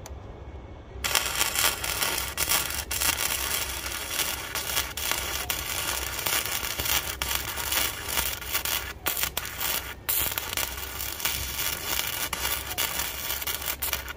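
Flux-core wire-feed welding arc crackling steadily as a bead is laid on a steel frame joint. It starts suddenly about a second in, with a couple of brief breaks in the arc a little past the middle.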